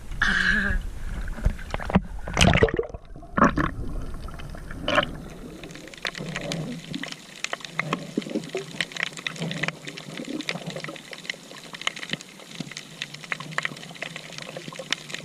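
Sea water splashing and sloshing close to the microphone, with many short irregular splashes, heavier in the first few seconds.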